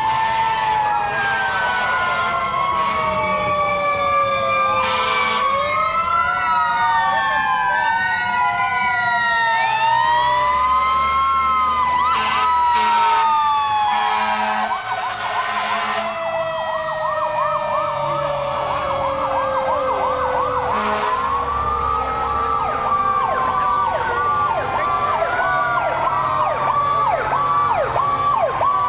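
Several sirens wailing at once, overlapping and rising and falling in pitch. From about halfway they switch to a fast, rapidly repeating yelp, and a steady pulsing tone joins near the end, with a few short bursts of noise along the way.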